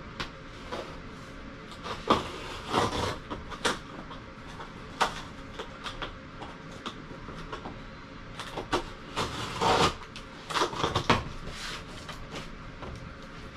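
A cardboard shipping box being handled and opened by hand: irregular bursts of scraping and rustling cardboard with a few sharp clicks and knocks.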